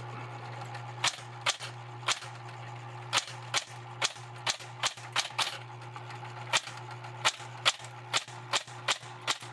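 Smith-Corona Coronet Electric 10 electric typewriter typing: sharp, irregular key strikes over the steady hum of its running motor.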